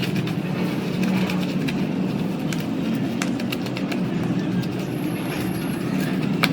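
A machine motor running steadily with a low hum, with many light clicks and ticks scattered over it.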